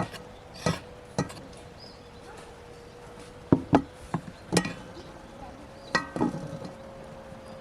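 Irregular sharp knocks and taps, some single and some in quick pairs, with a faint steady hum beneath.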